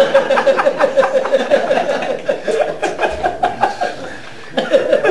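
A man laughing hard in quick repeated bursts that tail off about three and a half seconds in, then start again near the end.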